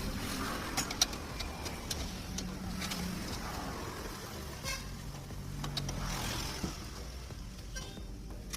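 Motor vehicles running and passing, their noise swelling and fading, with a few sharp clicks and knocks, one louder about a second in.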